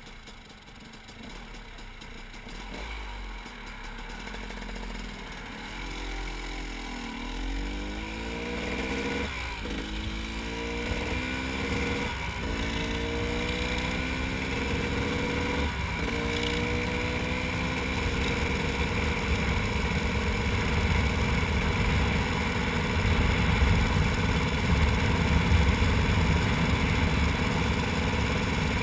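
KTM 300 EXC two-stroke single-cylinder engine pulling away and accelerating through the gears, its pitch climbing and dropping back at upshifts about ten, twelve and sixteen seconds in. It then settles to a steady cruise while wind rumble on the microphone builds with speed.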